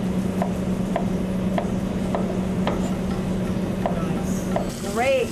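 Chef's knife chopping zucchini on a plastic cutting board: a steady series of knife strokes, about one every half second, each a sharp tap on the board. Near the end a brief wavering pitched sound cuts in.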